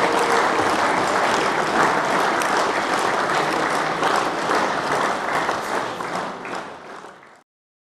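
Crowd applause: many hands clapping densely, fading away over the last couple of seconds before cutting off.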